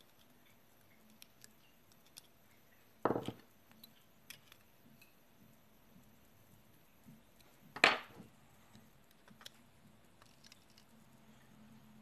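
Small metal clicks and taps as lock pins, springs and tweezers are handled over a pinning tray, with two louder sharp knocks a few seconds apart.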